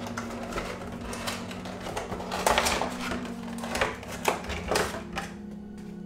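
Cardboard figure box opened and its clear plastic blister tray pulled out, the plastic crackling and rustling in irregular handling noises, loudest about two and a half seconds in. Background music holds steady low notes underneath.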